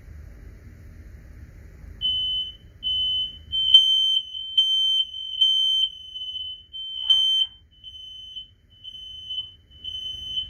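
Ceiling smoke alarm sounding during a test: a single high beep tone that starts about two seconds in and pulses a little faster than once a second.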